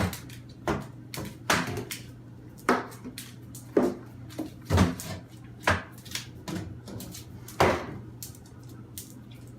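A series of sharp knocks at uneven intervals, roughly one a second, over a steady low hum.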